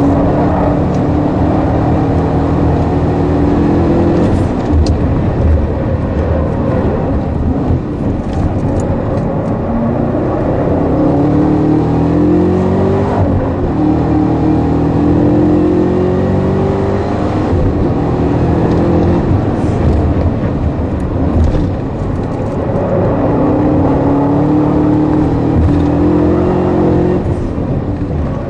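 Supercharged 6.2-litre V8 of a Chevrolet Camaro ZL1 under hard track driving, heard from inside the cabin: the engine note climbs and drops again several times as the car accelerates and slows through corners, over steady tyre and road noise.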